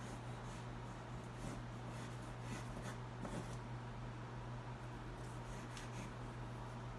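Red conté crayon scratching over tinted xuan paper in short, irregular drawing strokes, over a steady low hum.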